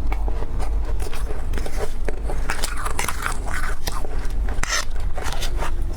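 Freezer frost being bitten and chewed close to the microphone: a quick, irregular run of soft, powdery crunches, over a steady low hum.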